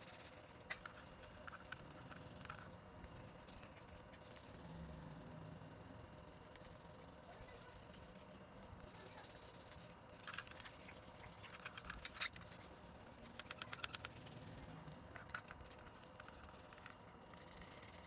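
A small pointed tool scraping at the plastic tube of an old stove lighter: faint scratching in short bursts of rapid strokes, over a steady low hiss.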